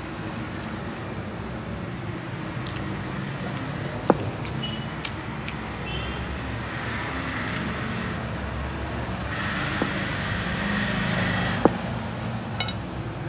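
Steady low rumble and hiss of background noise, with a few sharp clicks, one about four seconds in and one near the end, while a person eats crumbly pittu by hand from a plate.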